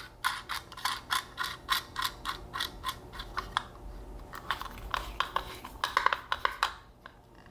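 Quick run of small metal clicks, about four a second, then slower and irregular, from a nut and fastener being worked down the screw through the lamp's light fixture by hand.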